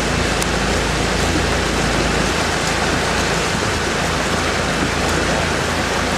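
Steady rush of wind and water noise from a moving boat, with a low engine hum underneath.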